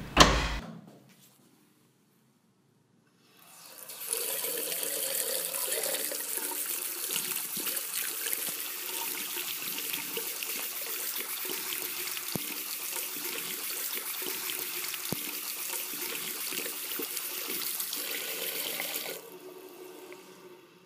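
Bathroom washbasin tap running steadily, the water splashing over hands being washed under it; it is turned off near the end. A sharp thump comes right at the start.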